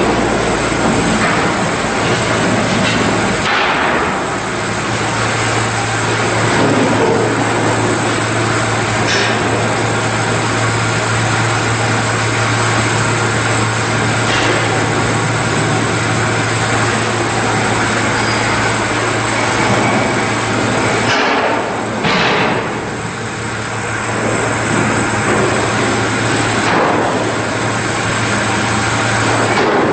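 Shipyard machinery running with a steady low hum and a dense mechanical noise, with a few sharp metal knocks. The hum cuts out briefly about two-thirds of the way through, then resumes.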